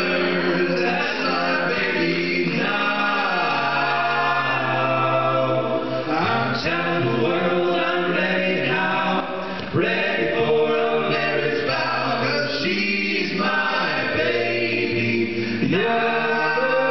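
Male a cappella vocal group singing in close harmony through microphones and a PA, several voices over a sustained bass part, with no instruments.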